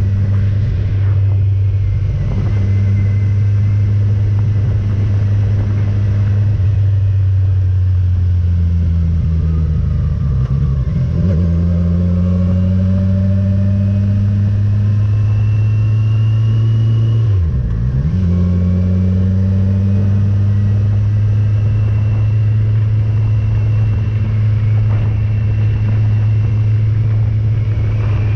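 Motorcycle engine running steadily at road speed. The revs sag and climb back twice: slowly about a third of the way in, and in a quick dip a little past halfway, as when the throttle is rolled off for a gear change.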